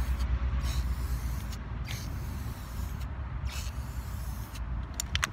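Aerosol can of Rust-Oleum spray paint hissing in three short bursts as paint is sprayed into the letters, over a steady low rumble. Near the end a quick run of sharp clicks starts: the can's mixing ball rattling as it is shaken.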